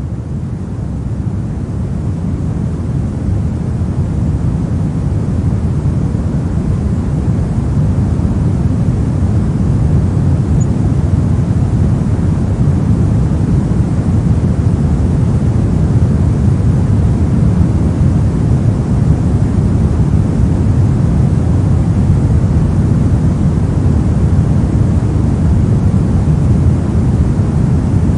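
Steady synthetic pink noise: an even, hissing rush weighted toward the low end, fading in over the first several seconds and then holding level.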